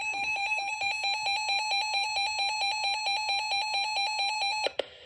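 Weather radio receiver's built-in alert alarm sounding for an incoming warning: a rapid, evenly pulsed electronic beeping, about eight to nine beeps a second. It cuts off sharply near the end as the receiver opens to the broadcast.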